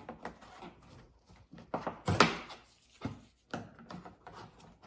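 A plastic trim cover on a Lexus RX tailgate's inner panel being pried at with a trim tool: a series of short clicks and knocks as its clips are worked loose, the loudest about two seconds in.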